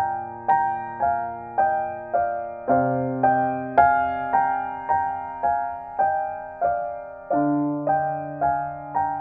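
Background piano music: a slow prelude of repeated notes about twice a second over held bass notes, which change about three seconds in and again near seven seconds.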